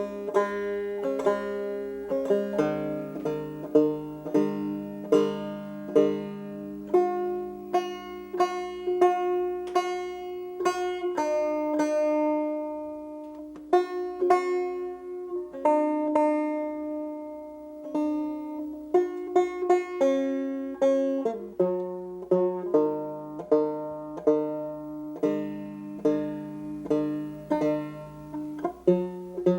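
Solo banjo playing a tune: a steady run of plucked notes that ring and fade, thinning to a few longer-ringing notes in the middle before the picking picks up again.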